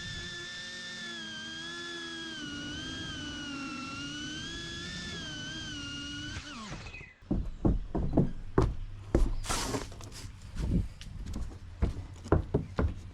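FPV quadcopter's brushless motors giving a high whine that wavers in pitch with the throttle, then falling away steeply as they spool down. This is followed by a string of irregular knocks and thunks.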